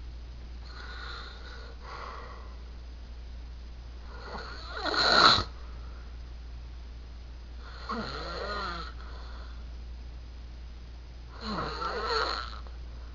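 A man snoring loudly in his sleep, four snores about three to four seconds apart, the one about five seconds in the loudest.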